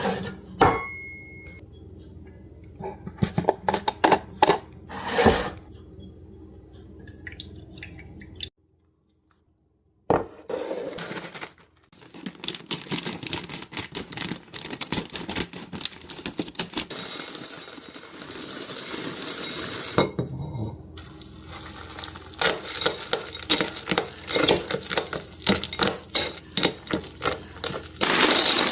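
Small hard objects being handled: a run of clicks, taps and light clinks, with a break of about a second and a half of silence near the nine-second mark and a stretch of steadier rustling noise in the middle.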